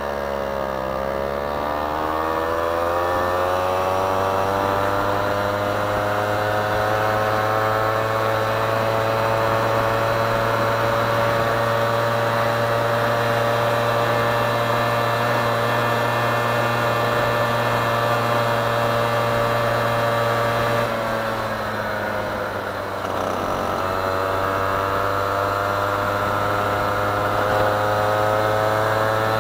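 LRX scooter's 1E41QMB 50cc single-cylinder two-stroke engine running under way. The revs dip briefly, climb over several seconds as it accelerates, then hold steady at speed. They fall off about twenty seconds in and climb again near the end.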